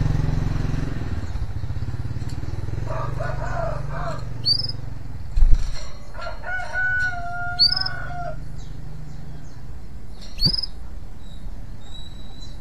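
Male canary giving three short rising chirps about three seconds apart, while a rooster crows twice and a low engine hum fades out. A sharp knock about five and a half seconds in.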